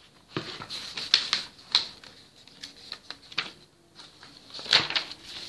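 Sheets of drawing paper being handled and swapped: a string of irregular crisp rustles and flaps, the loudest a little before the end.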